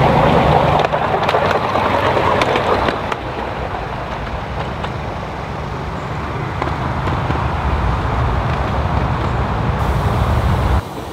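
A 7¼-inch gauge miniature steam locomotive running past on its track. The wheels make a steady rumble on the rails, with a run of sharp clicks in the first few seconds while it is closest. The sound then eases to a lower rumble and drops away abruptly near the end.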